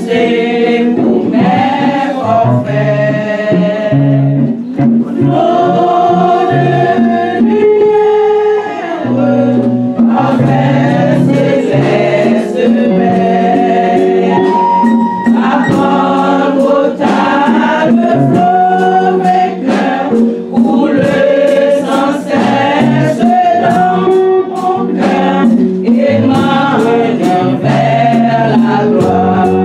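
Gospel music with a choir singing over a bass line and a steady percussive beat.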